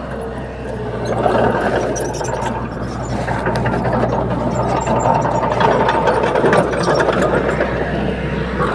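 Heavy diesel engine of earthmoving machinery running steadily, with scattered light clicks and rattles.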